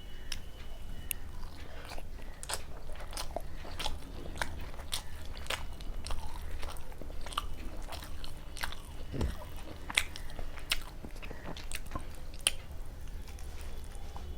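Close-up eating sounds: a person biting and chewing food, with many irregular wet mouth clicks.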